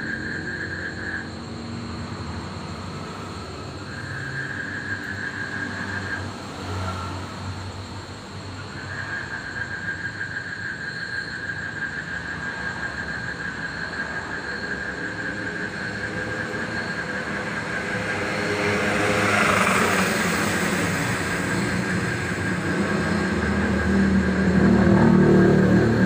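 Frogs calling in long, even trills that break off twice and then run on, over a steady high drone. A passing vehicle swells and fades about twenty seconds in, and another rises near the end.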